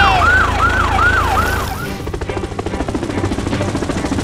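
A siren sound effect sounding as quick falling yelps, about three a second, stops about two seconds in. The fast, steady chop of a helicopter rotor sound effect follows.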